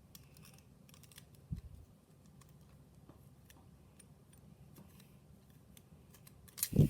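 Light, scattered clicks and taps of small plastic Beyblade parts being handled and fitted, with one soft low thump about a second and a half in.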